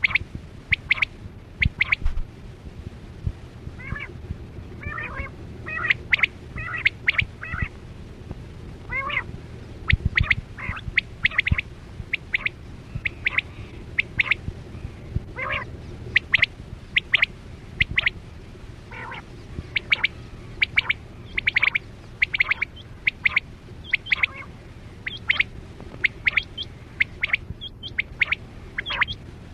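Quail calling: short, sharp calls repeated in quick groups, again and again, over a low steady hum.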